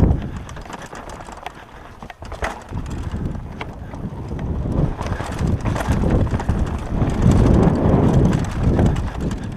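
Downhill mountain bike descending a rocky dirt trail: tyres, chain and frame rattling and knocking over stones and across a wooden plank bridge, with a low rumble. Quieter for the first two seconds, then louder and busier from about the middle on.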